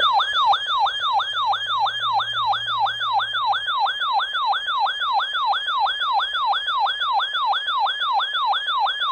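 Electronic siren alarm of a weather alert receiver, set off by an incoming severe thunderstorm warning. It is a loud, rapidly repeating tone that jumps up and sweeps down in pitch about three times a second.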